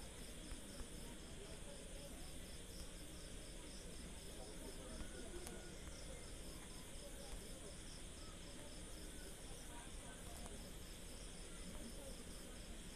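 Faint insect chirping, a regular high-pitched pulse repeating steadily, over a low background rumble.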